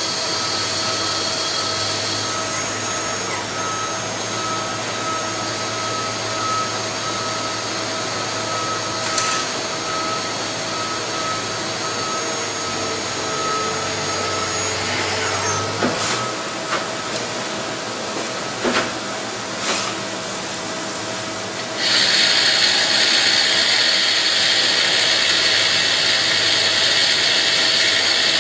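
Hardinge T42 CNC lathe running: a steady machine hum with a high whine that stops about halfway through, followed by a few sharp clicks. After about twenty seconds a louder, steady hiss sets in.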